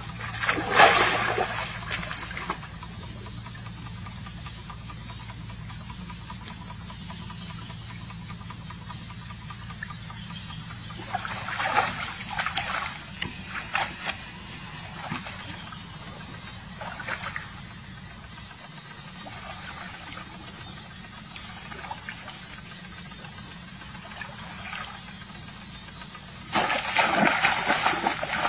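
Shallow muddy water splashing in bursts as a person wades and plunges a woven bamboo fish trap, with the loudest splashing near the start and over the last couple of seconds. A steady low hum runs underneath.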